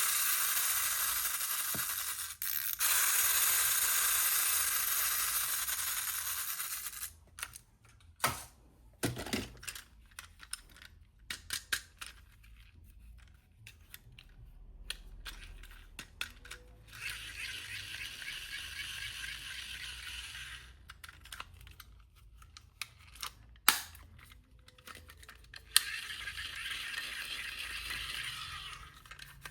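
Plastic toy packaging being handled and unwrapped: long spells of rustling and tearing plastic, broken up by scattered clicks and knocks of small plastic toy pieces.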